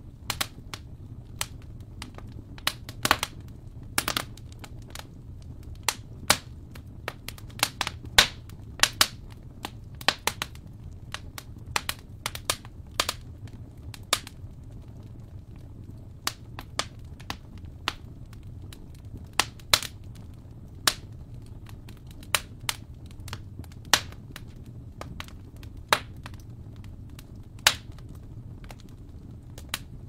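Wood fire crackling in a fireplace: irregular sharp pops and snaps, several a second at uneven spacing, over a steady low background of the fire.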